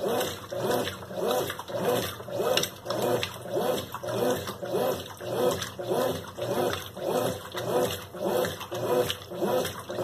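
Consul Maré Super 10 kg top-loading washing machine agitating a load in water: a regular back-and-forth churning, about two strokes a second, each stroke carrying a short whine that bends up and down as the motor reverses.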